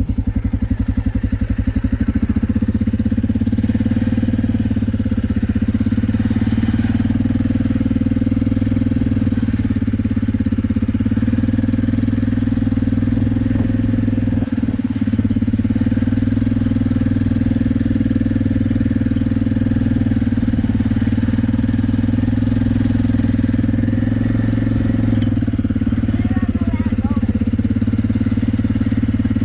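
Small vehicle engine running at a steady, unchanging speed.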